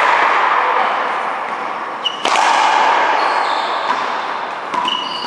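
Racquetball being struck and smacking off the wall during a one-wall racquetball rally, a few sharp hits about two seconds apart, with brief high squeaks of sneakers on the court floor, over a steady noisy background in a large hall.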